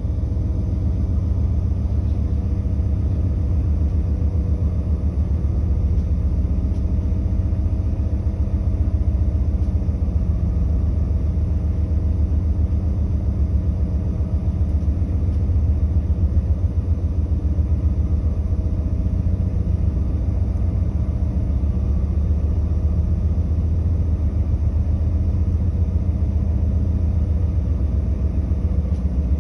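Steady low rumble aboard the tanker Algoma Dartmouth under way in open sea, with the ship's engine and machinery running under wind and water noise.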